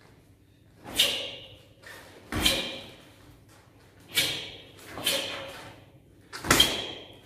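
Five sharp snaps from a taekwon-do uniform (dobok) as strikes and kicks are thrown, roughly a second apart. The second and last carry a heavier thud of bare feet landing on foam mats.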